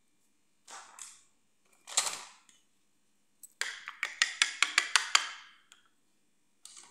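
Miniature plastic makeup brushes and their holder knocking and clicking on a marble floor. There are two scrapes or knocks, then a quick run of about ten sharp clicks over a second and a half.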